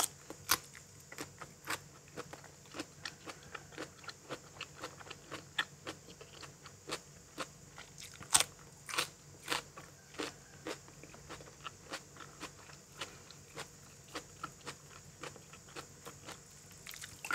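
Close-miked eating sounds: a person biting and chewing crunchy food, with irregular crisp crunches a few times a second and one louder crunch about eight seconds in.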